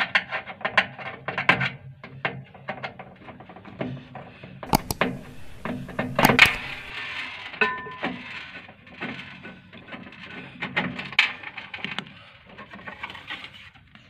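Clicks, knocks and clinks from the glass turntable plate and metal parts being handled inside a microwave oven's cavity, with a screwdriver working out the screw of the waveguide cover and a brief squeak near the middle. A steady low hum runs underneath.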